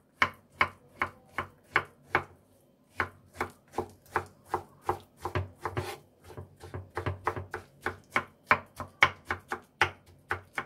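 Kitchen knife chopping soft fire-roasted eggplant on a wooden cutting board: a run of sharp knocks, about two to three a second, with a short pause about two seconds in and quicker strokes later on.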